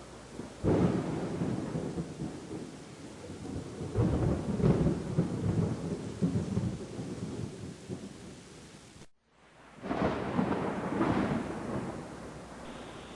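Thunder rumbling over steady rain: a sudden peal under a second in, a longer rolling rumble from about four seconds, then, after a brief break in the sound, more rolling thunder.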